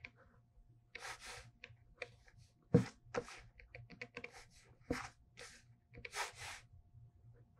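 Pentel correction pen's metal tip scratching and dabbing on drawing paper in short strokes, laying in white highlights, with a few sharp taps, the loudest about three seconds in.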